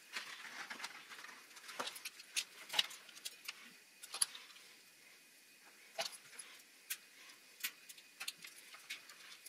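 Small clicks and rustles of hands handling thin wires and a small plastic DC power connector, with about a dozen sharp ticks scattered through, the loudest about three and six seconds in.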